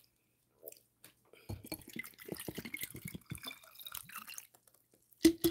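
Water being drunk from a plastic bottle: a quick run of gulps and glugs for about three seconds, then a brief louder sound near the end.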